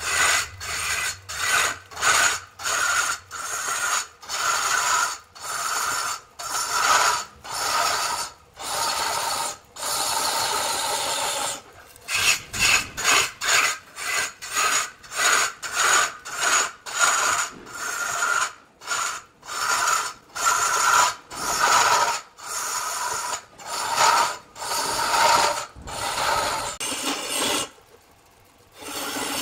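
Hand tool rasping across wood in rhythmic back-and-forth strokes, about two a second, with one longer unbroken stroke about ten seconds in and a short pause near the end.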